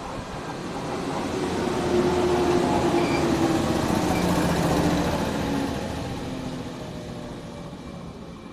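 JR 115-series electric train of seven cars pulling out and running past close by: traction motor hum and wheels on the rails swell to their loudest about two to five seconds in as the cars go by, then fade as it pulls away.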